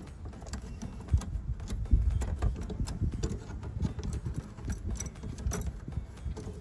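Irregular light clicks and taps of tools and wires being worked at the terminals of a pool timer mechanism while it is unwired, over a steady low rumble.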